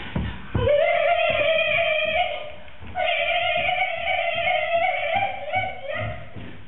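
A high voice singing two long held notes, the pitch wavering slightly; the first breaks off just past two seconds and the second starts about three seconds in and holds until near the end.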